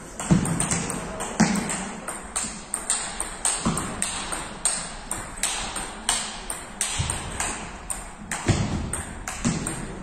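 Table tennis rally: the ball clicking off the bats and the table in a steady rhythm, about two hits a second, with a few duller thuds among them.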